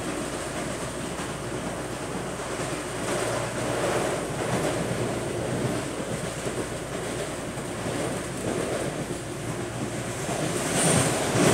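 CPTM Line 10 commuter train heard from inside the car while running along the line: a steady rumble of wheels on rail. The noise swells a few seconds in and again near the end.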